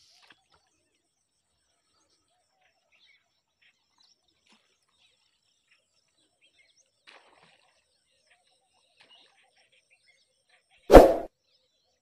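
Mostly near silence, then about a second before the end a single short, loud whoosh: the sound effect of a subscribe-button animation.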